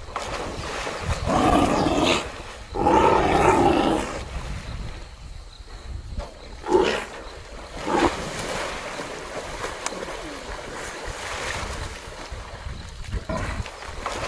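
Lions growling during a struggle with a waterbuck in a river, with water splashing and churning. Two long growls come in the first four seconds, then two short ones near the middle.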